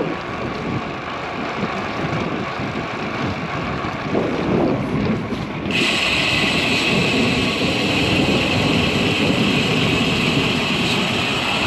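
Wind rushing over a bike-mounted microphone with tyre and traffic noise while riding a road bicycle. About halfway through, a steady higher hiss joins and continues.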